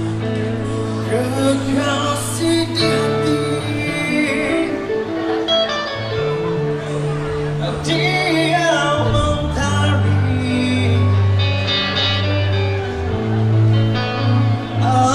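Live rock band playing: a male singer sings over electric and acoustic guitars, bass guitar and drums.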